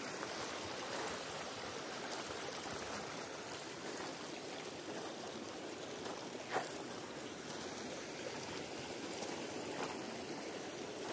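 River water flowing steadily over stones and gravel at the bank, with one short sharp click about two-thirds of the way through.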